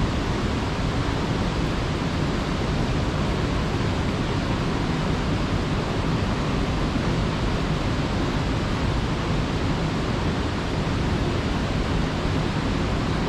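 Steady rush of fast-flowing mountain stream water, an even unbroken hiss with no change in level.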